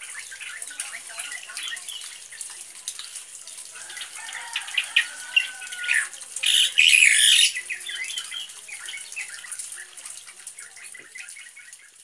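Caged black drongo singing a rapid run of short chirps and whistles in imitation of the sooty-headed bulbul's call. Near the middle there is a louder, harsher burst lasting about a second.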